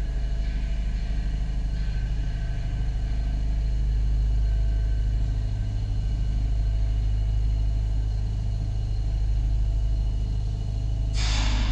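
Star Wars Star Destroyer interior hangar ambience: a steady, deep mechanical hum with faint constant tones above it. A loud hiss cuts in suddenly near the end.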